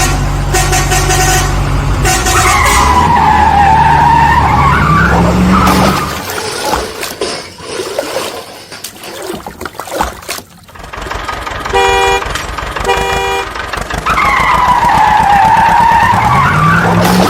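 Truck engine running and revving up, with a swooping rise-and-fall tone heard twice and two short horn toots about two-thirds of the way through.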